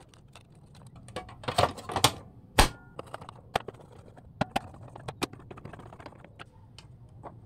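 Scattered clicks and knocks of a portable turntable's plastic case being closed up and screwed shut with a hand screwdriver. The loudest knocks come about two seconds in, followed by lighter, irregular clicks.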